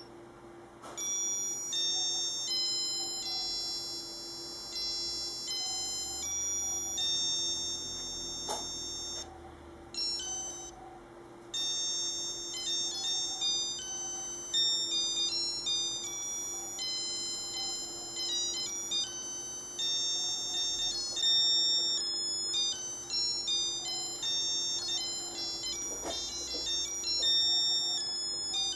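Casio Melody M-1230 (module 82) watch playing its built-in tunes on its piezo beeper: quick runs of high, pure electronic notes, with short pauses where one tune ends and the next begins.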